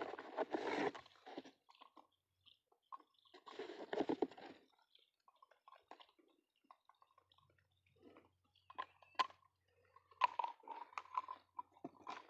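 Cardboard box rustling and crinkling as it is handled, then several short clicks and light knocks from plastic pipe fittings being taken out and handled.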